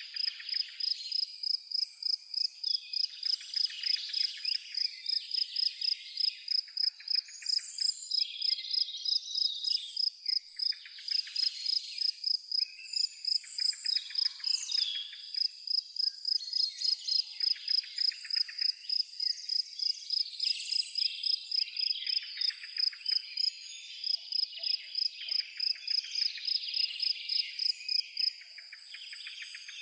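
Forest ambience: a cricket chirping in a steady, even rhythm of about two and a half high chirps a second, with a chorus of songbirds warbling and trilling around it. The chirping pauses briefly near the end.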